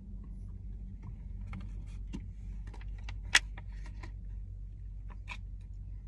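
Light crinkling and clicking of a plastic water bottle being handled, with one sharper click about three and a half seconds in, over a steady low hum inside a car.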